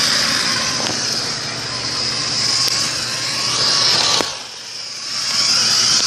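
Small electric motor of a Magic Tracks toy car running steadily as it pulls toy train cars along the flexible track, with a click about four seconds in and a brief dip in level before it comes back up.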